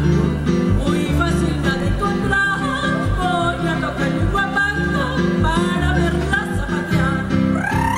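A woman singing a huapango with instrumental accompaniment over a steady bass beat, her voice bending in pitch and sliding upward near the end.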